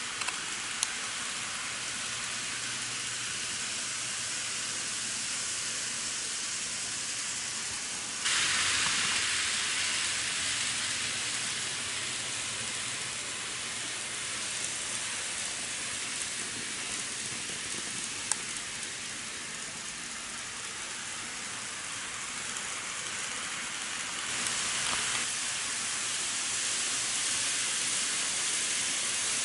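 N-gauge model trains running on their track: a steady hiss from the wheels and small motors. It gets louder about eight seconds in and again near the end as a train comes close, with two short clicks along the way.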